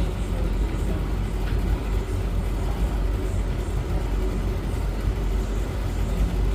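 Beko washing machine and Hoover tumble dryer running together, a steady low hum and rumble of drum and motor.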